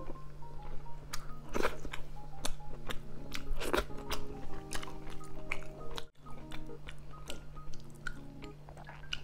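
Close-miked chewing and biting of a mouthful of adobong sitaw string beans and rice, many short wet mouth clicks, over soft background music. The sound cuts out briefly about six seconds in.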